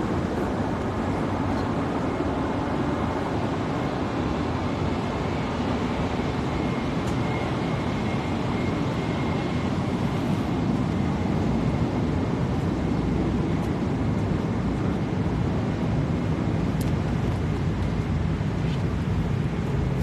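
Steady rushing noise inside an airliner cabin, with a faint high whine for a few seconds midway.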